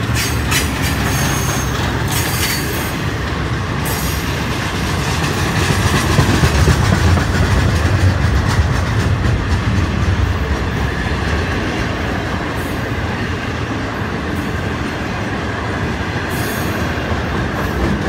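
Intermodal freight train cars, trailers on flatcars and containers, rolling past close by: a steady rumble of wheels on rail, a little louder around the middle, with a few sharp clicks.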